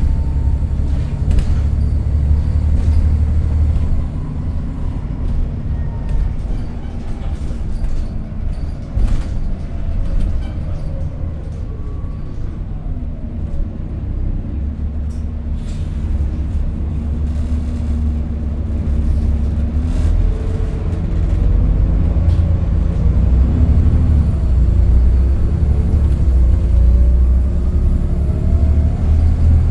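Volvo B7TL double-decker bus's six-cylinder diesel engine running under way, heard on board as a deep rumble. The engine note drops and the sound eases off around the middle as the bus slows, then rises again from about two-thirds of the way through as it pulls away.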